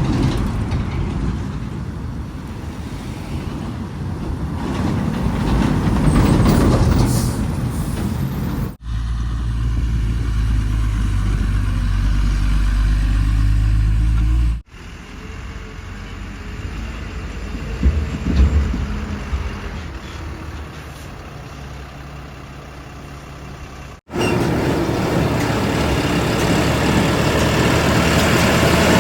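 Heavy diesel machinery of a backhoe loader and trucks running, heard across several clips cut together. In one clip the sound is a steady low engine drone, and a couple of sharp knocks stand out a little past the middle.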